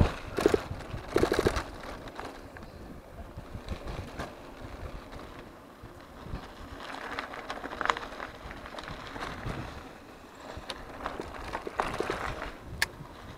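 E-bike riding over a rough sandy gravel trail: tyres crunching and the bike rattling over bumps, loudest in a couple of jolts in the first two seconds, with a sharp click near the end.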